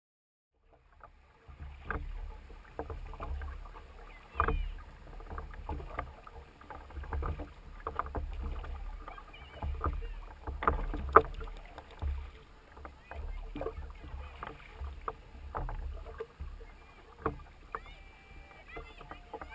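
Wooden rowboat under oars: the oars knock in their oarlocks and the blades dip and splash with each stroke, at an uneven pace over a low rumble. It starts about a second in.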